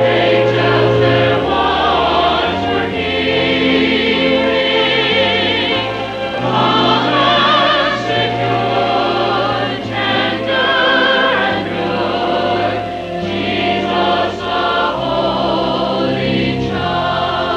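Church choir singing in parts with vibrato, over steady low accompaniment notes that change in steps.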